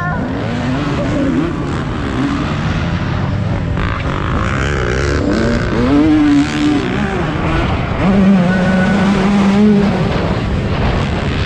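Two-stroke dirt bike engine revving hard under load, its pitch repeatedly rising and falling with throttle and gear changes, then held steady for a couple of seconds near the end.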